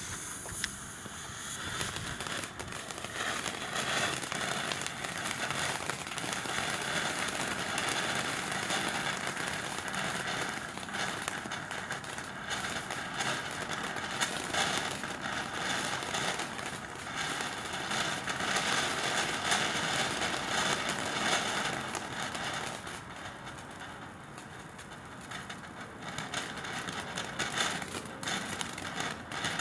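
TNT Global Lights consumer firework burning with a steady hiss and dense crackling, easing briefly a few seconds before the end and then picking up again.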